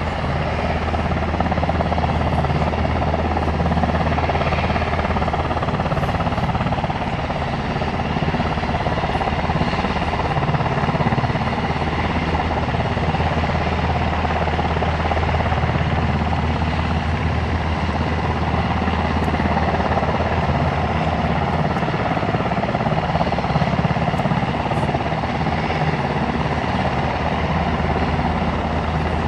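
UH-60 Black Hawk helicopters running on the ground, a steady, unbroken turbine and rotor sound with a low, even beat.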